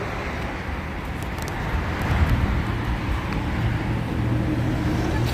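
A car engine running steadily with road noise, a low hum that grows a little stronger in the second half.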